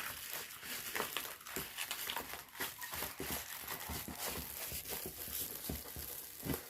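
Plastic packaging crinkling and rustling as it is handled, with many small irregular clicks and scrapes.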